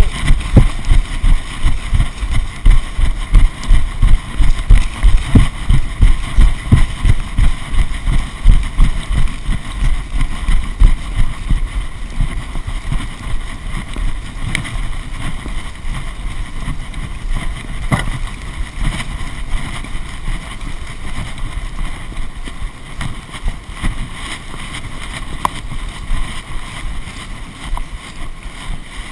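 Wind buffeting the microphone with a low rumble, and low rhythmic thumps two or three a second that die away about twelve seconds in, leaving a steadier rumble.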